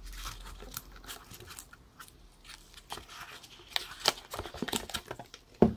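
Handling noise as a plastic-wrapped wristwatch is lifted out of its foam box insert: crinkling and rustling of the wrap and packaging with scattered small clicks, and a louder knock near the end.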